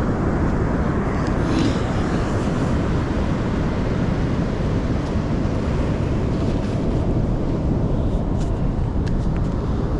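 Storm wind buffeting the microphone over the noise of the surf, a steady heavy rush with a few faint ticks near the end.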